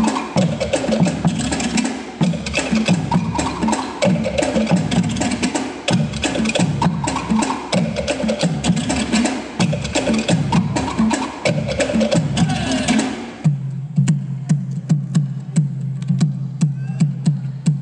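Tahitian drum ensemble playing a fast, dense rhythm: wooden slit drums (to'ere) struck with sticks, with skin drums beneath. About 13 seconds in the full ensemble stops, leaving a single steady pulse of sharp strokes, about two or three a second, over a low steady tone.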